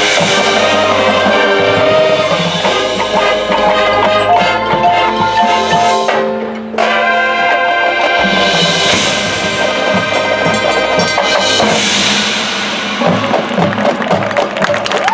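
Marching band playing, with the front ensemble's marimbas, xylophones and glockenspiel prominent over sustained wind chords. The music thins out briefly about six and a half seconds in, then comes back in full, with busier percussion strokes near the end.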